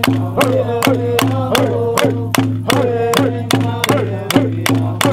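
Pomo dance song: voices singing sustained, gliding notes over a steady beat of sharp wooden clicks, about three a second, from split-stick clapper rattles.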